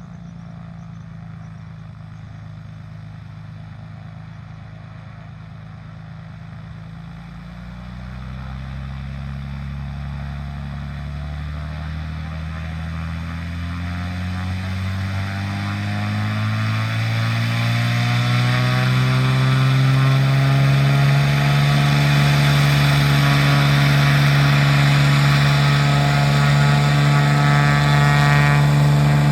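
Cessna 210L Centurion II's six-cylinder piston engine and propeller throttling up for takeoff. The pitch and loudness rise over about a dozen seconds, then hold steady at high power.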